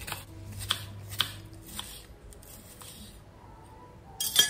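Chef's knife chopping green onion stalks on a wooden cutting board, a chop about every half second, then softer cuts that fade out; a single sharp clack near the end.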